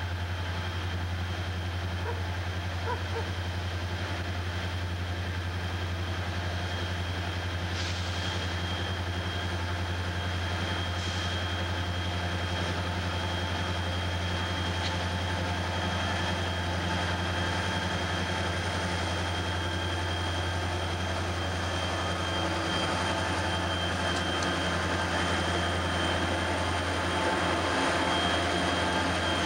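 CSX diesel locomotives running as they approach and pass close by: a steady low engine drone that grows louder near the end as the units come alongside.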